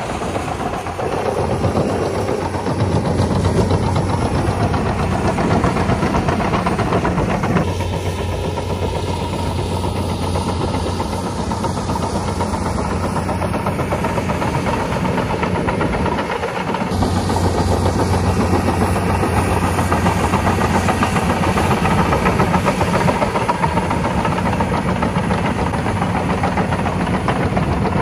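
Caterpillar D7E diesel-electric bulldozer running steadily while it pushes soil with its blade: an even engine tone under a steady hiss. The sound changes abruptly twice, about a quarter and about three-fifths of the way through.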